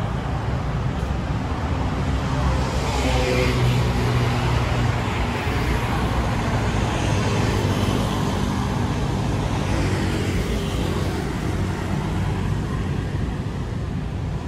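Steady road traffic with engines running. It swells as a vehicle passes close by about three seconds in, and again partway through.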